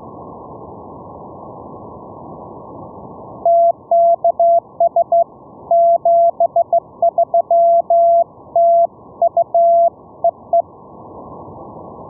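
Morse code (CW) signal received through an SDR app: a single mid-pitched beeping tone keyed in dots and dashes for about seven seconds, starting a few seconds in, over a steady receiver hiss that dips while the tone is on.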